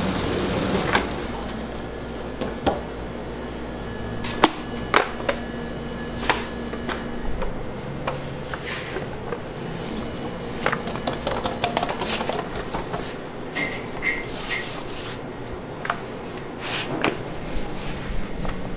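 Sheets of laminated croissant dough handled by hand, with scattered soft knocks and taps as the dough and the baker's hands meet the sheeter and work table. A steady machine hum runs underneath and stops about seven seconds in, and a few short high tones sound about halfway through.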